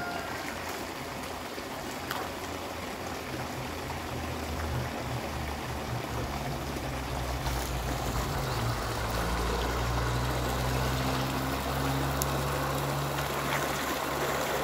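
Water running and trickling as a fish pond is drained. A low steady hum comes in a few seconds in and grows stronger through the second half.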